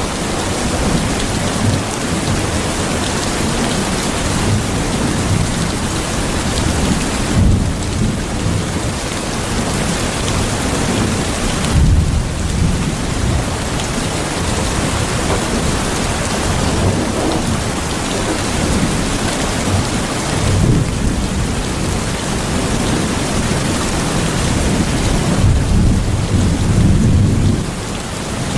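Steady, heavy rain, a continuous hiss, with low rolls of thunder rumbling up several times.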